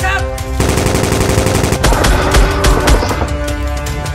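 Rapid gunfire in bursts, like a machine gun, over background music. The shots come thick and fast from about half a second in.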